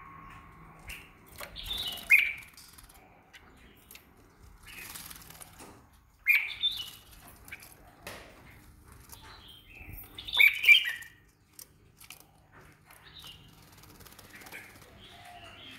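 Caged songbirds chirping in short loud bursts, about two seconds in, at about six seconds and again around ten seconds, with fainter chirps and light clicks between.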